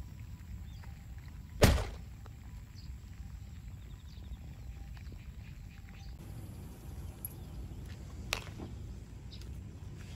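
Steady low rumble of wind on the microphone, with one loud thump a little under two seconds in and a softer knock past the middle.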